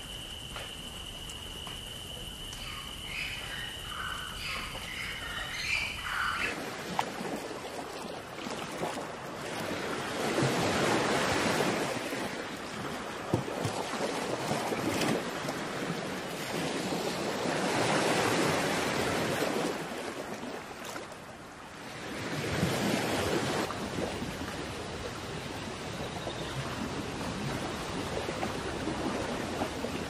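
For the first six seconds, a steady high insect drone with a few short bird chirps. It then cuts to ocean surf washing against rocks, swelling and fading several times.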